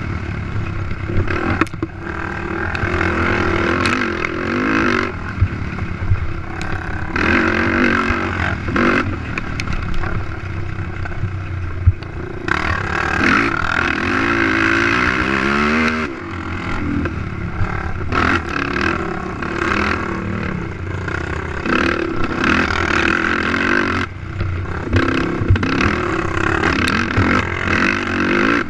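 Race ATV engine revving up and down under hard throttle as the quad is ridden over rough ground, with scattered knocks and rattles. About halfway through, one long rising rev cuts off sharply.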